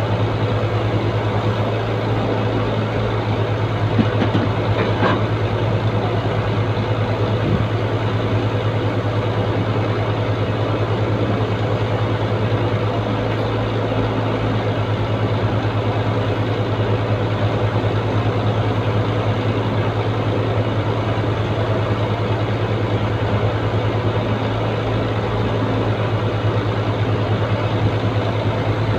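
HOWO 371 heavy truck's diesel engine idling steadily with a low, even throb, and a brief knock about four seconds in.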